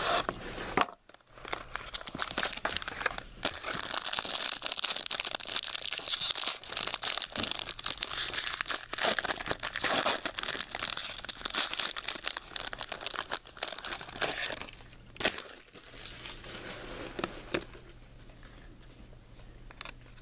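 Plastic wrapping on a sealed box of trading cards crinkling and tearing as it is pulled open, a dense run of crackles that dies down near the end.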